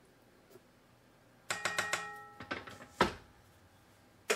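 A measuring spoon tapping several times in quick succession against a KitchenAid stand mixer's stainless steel bowl, each tap leaving a short metallic ring, as flour is knocked into the bowl. A few softer knocks follow, then a thump about three seconds in.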